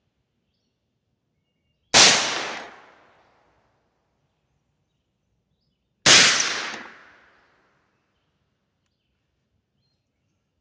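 Two rifle shots about four seconds apart, each ringing out for about a second: a .300 Blackout rifle firing 155-grain handloads set off by small pistol primers, both of which fire without a misfire.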